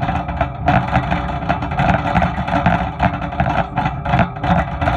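Metal wire shopping cart being pushed across a store floor, its basket and wheels rattling loudly and continuously, heard from inside the cart.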